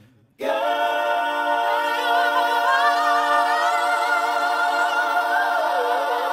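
Layered a cappella voices start about half a second in and hold one long sung chord, with a lead voice weaving a wavering melody over it.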